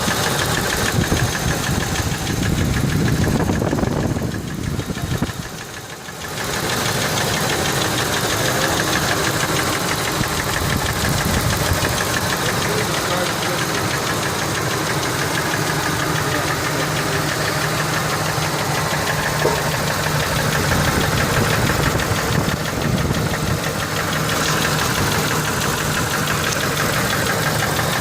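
Ford F-150 4.6-litre two-valve V8 running with a rapid, steady knocking rattle. It sounds like a lifter or lash adjuster ticking, but the owner suspects worn rod bearings.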